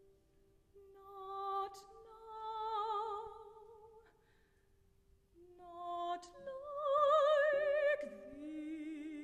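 A female opera singer sings three long phrases with wide vibrato over piano accompaniment, starting about a second in; the last phrase is a lower held note.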